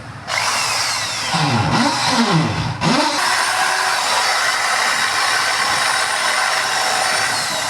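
Electric drill switched on, its speed dipping and climbing a few times under the trigger before it runs steadily at full speed. This is a test run of the drill with its repaired trigger switch working.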